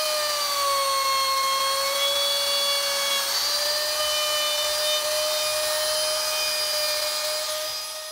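Electric wood router running at high speed while its bit carves the background of a wooden relief: a steady high whine that sags a little in pitch as the bit bites into the wood. It fades out at the end.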